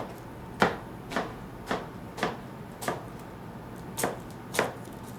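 A run of sharp knocks about twice a second, seven in all, with a short pause around three seconds in.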